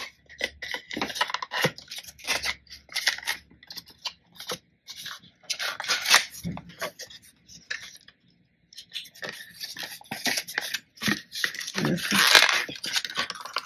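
Small white paperboard box being torn and pried open by hand: a run of short, irregular crinkling, scraping and tearing sounds, loudest about twelve seconds in.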